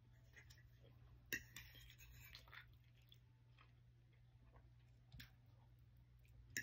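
Faint chewing with a few sharp clicks of a metal spoon and fork against a plate. The loudest click comes about a second and a half in.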